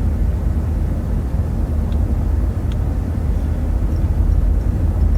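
Steady low road and engine rumble of a car, heard from inside the cabin while driving.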